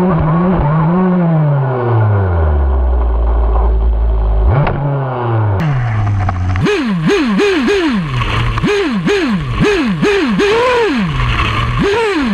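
Nova P5 two-stroke nitro engine of an RC buggy, heard close up from an onboard camera. It winds down to a low idle over the first few seconds, gets one quick blip, then from about halfway through is revved up and down in quick bursts, about two a second.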